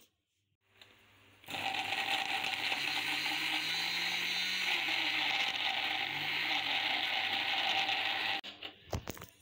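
Electric food chopper's motor and blades running, mincing raw chicken with bread and spices into a paste. It starts about a second and a half in, runs steadily with a slightly wavering pitch, and cuts off suddenly near the end, followed by a few short knocks.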